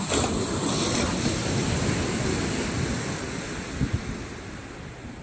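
Sea waves washing onto the beach, swelling at the start and dying away over a few seconds, with wind rumbling on the microphone. Two brief low thumps come near the end.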